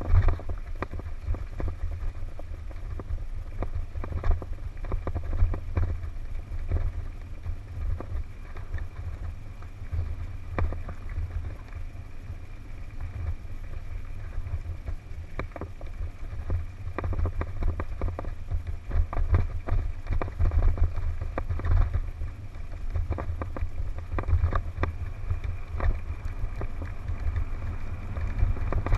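Mountain bike descending fast on a rough dirt forest trail: a steady low wind rumble on the helmet camera's microphone, with constant rattling and knocking from the bike jolting over roots and stones.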